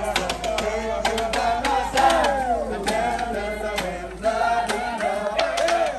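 A crowd of marching band members singing together in loud voices, with sharp strokes on a Pearl marching snare drum scattered through the song.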